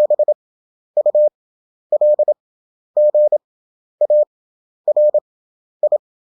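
Morse code practice tone: a single steady pitch keyed in dots and dashes, each character sent fast (27 wpm) with wide Farnsworth gaps of about a second between characters, seven characters in all.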